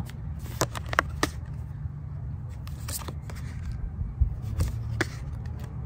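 A deck of tarot cards being flicked through in the hand, giving a scattering of short crisp card clicks over a low steady rumble.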